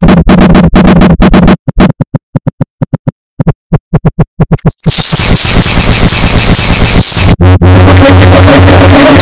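A very loud run of harsh synthetic noises. Rapid stuttering clicks start it, thinning out to scattered clicks with silence between. About five seconds in comes a harsh hiss with a piercing high band, and after a brief break near the end, a buzzing drone of steady tones.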